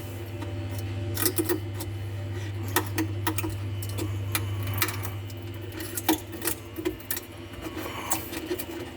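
A steady low machine hum that fades out about seven seconds in. Over it come irregular light clicks and knocks, as of small wooden parts being handled on the CNC bed.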